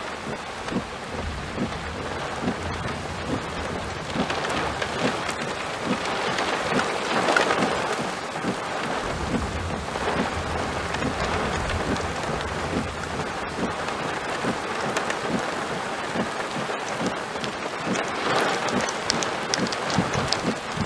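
Steady thunderstorm rain with close drops ticking, and low thunder rumbling about a second in and again about halfway through. The rain swells louder about a third of the way in and again near the end.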